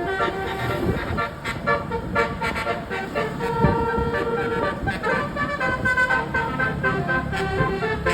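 Tour bus telolet horn, a set of multi-tone air horns, playing a fast melody of short notes with one longer held note a few seconds in, over engine and traffic rumble.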